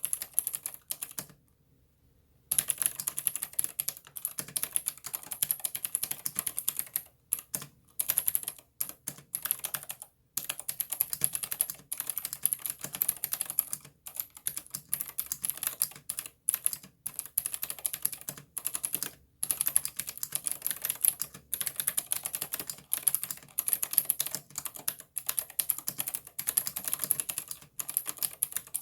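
Fast continuous typing on a Ninja87 ALU aluminium-case mechanical keyboard with clicky Cherry MX Blue switches and PBT keycaps: rapid sharp clicks in long runs, with a pause of about a second early on and a few brief gaps.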